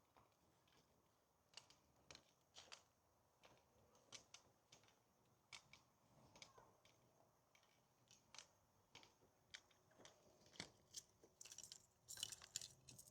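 Near silence with faint, irregular clicks and taps, a denser flurry of them near the end.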